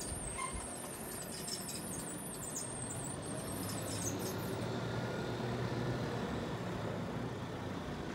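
Scania P230 street sweeper truck driving slowly and turning, its diesel engine running steadily and growing a little louder midway. A thin, high squeal sits over it for roughly the first half.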